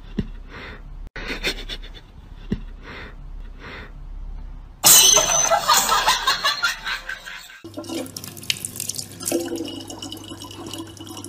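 Background music with a regular beat, then a loud rush of noise lasting about three seconds. After that, a thin stream of water from a kitchen tap runs steadily into a plastic bottle, over a low steady hum.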